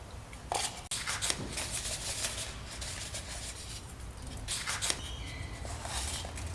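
Irregular rustling and crinkling of paper slips being rummaged and unfolded by hand during a number draw, with a few sharp clicks.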